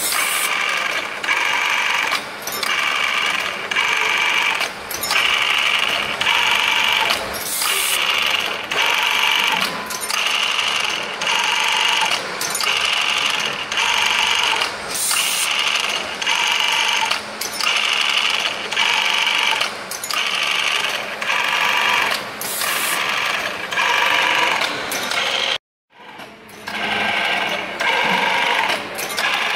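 Automatic single-spindle tapping machine running production cycles on sheet metal. Its high-speed spindle whines in repeated bursts a little more than once a second, with short gaps between.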